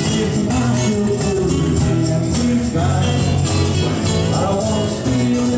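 Live band music: a harmonica played into a microphone over acoustic guitars and electric bass.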